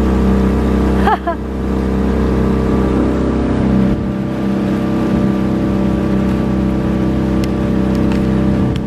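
Small fishing boat's engine running steadily under way, with water rushing from the wake.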